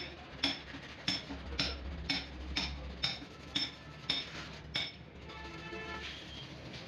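A run of sharp metallic clinks, about two a second and not quite evenly spaced, that stops about five seconds in, followed by faint music.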